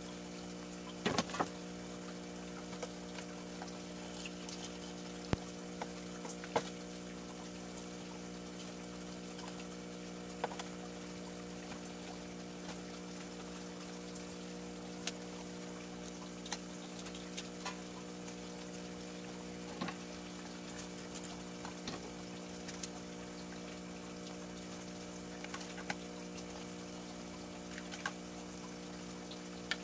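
Steady electric hum of a pump, with scattered small clicks and taps from snails and plastic crab bottles being handled, a cluster of them about a second in.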